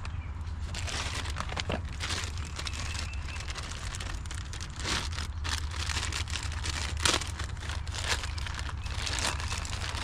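Irregular rustling and crinkling with small clicks and taps, like parts and packaging being handled, over a steady low hum.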